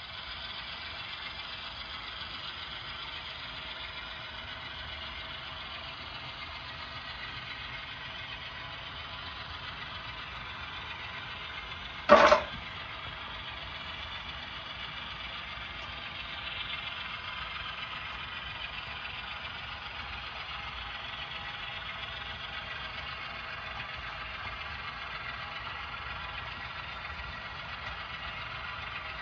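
HO scale model diesel locomotives running along the layout track, with a steady engine sound over the rolling of the train. About twelve seconds in there is one short, loud sound.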